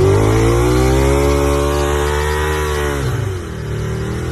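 Car engine revved up and held at high revs, then falling back toward idle about three and a half seconds in.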